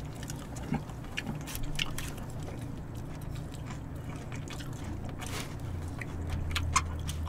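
Quiet chewing of food, with scattered small clicks and smacks over a low steady hum.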